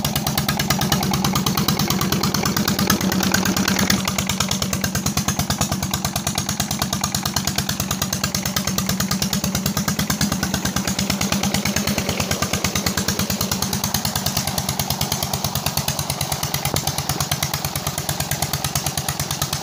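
Single-cylinder Peter diesel engine running steadily with an even firing beat while driving a water pump, its fuel injector nozzle plunger newly replaced; it gets a little quieter about four seconds in. Water gushes from the pump outlet into the channel.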